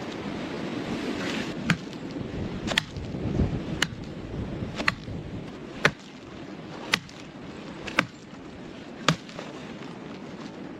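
A run of sharp knocks or clicks, evenly spaced about one a second, over a steady rushing background noise.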